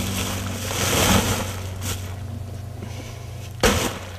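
Loose earth being scooped and dropped into a woven plastic sack, a rustling scrape about a second in, then a single sharp strike of a pick into the soil near the end. A steady low hum runs underneath.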